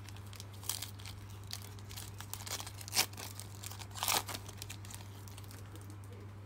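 Foil wrapper of a trading-card pack being crinkled and torn open by hand: a string of sharp crackles, loudest about three seconds in and again just after four seconds.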